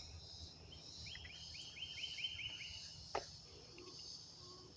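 Quiet background with a bird's trill of about eight quick repeated chirps about a second in, faint high chirping, and a single light click near the middle, over a steady low hum.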